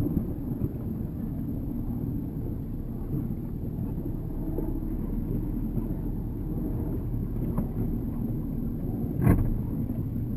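Motor of a small club tender boat running with a steady low rumble and faint hum. A single sharp knock comes about nine seconds in.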